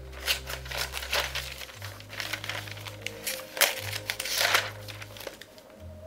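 Newspaper pages being handled, rustling and crinkling in short irregular bursts, loudest about three and a half to four and a half seconds in. Soft background music with low sustained notes plays underneath.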